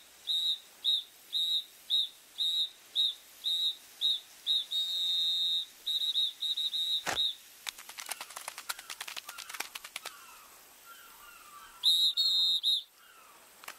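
Mobile phone beeping in a quick, steady rhythm of high electronic pips, about two a second, with one longer held tone in the middle. About seven seconds in a sharp knock is followed by a run of quick tiny clicks, and the beeping returns briefly near the end.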